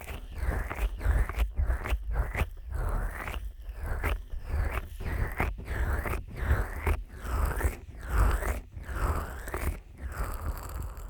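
Fingers slick with petroleum jelly rubbing and pressing on the silicone ears of a 3Dio binaural microphone, in a steady rhythm of about two strokes a second. Each stroke is a close, wet rub with a low thud of pressure on the microphone.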